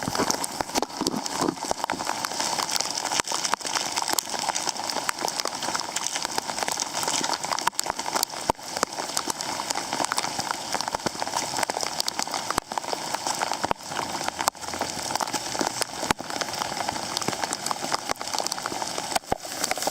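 Pouring rain, with a dense run of drops ticking on a surface close to the microphone.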